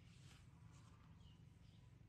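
Near silence: a faint steady low hum, with a brief soft rustle near the start and one tiny high chirp a little after a second in.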